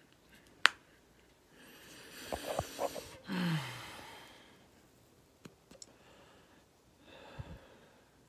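A cigarette smoker's breathing: a sharp click under a second in, then a long drag, then the smoke breathed out in a sigh, the voice falling in pitch. A second, softer breath out comes near the end.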